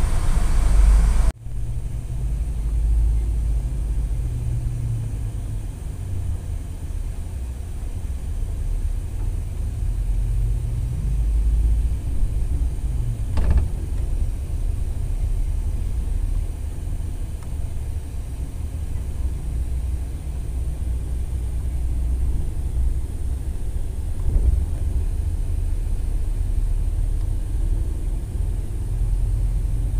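Steady low rumble of a moving vehicle. It breaks off for an instant just over a second in, then runs on, with a faint knock about halfway through.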